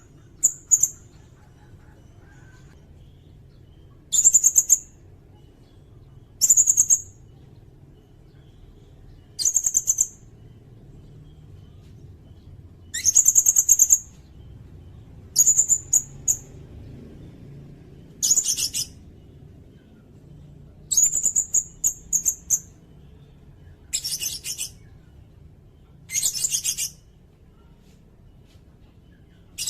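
Sirindet songbird singing: short, very high-pitched, rapid rattling trills, each about a second long, repeated every two to three seconds.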